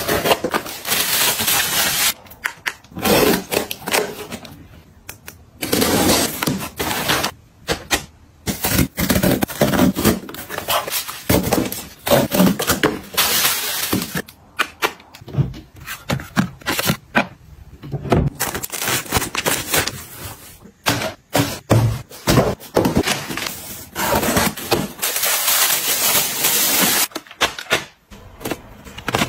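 Cardboard parcels being unboxed: packing tape torn off, cardboard flaps pulled open, and bubble wrap and plastic packaging crinkling. The noises come in long stretches with short pauses between them.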